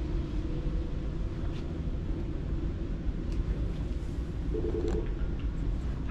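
Steady low rumble of a large store's background noise, with a few faint clicks and a short hum about four and a half seconds in.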